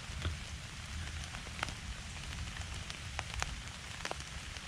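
Steady rain falling, with separate drops ticking sharply on a surface every so often.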